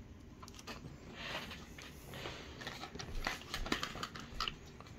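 A soft rustle about a second in, then a quick run of light clicks and taps: handling noise as things are moved about.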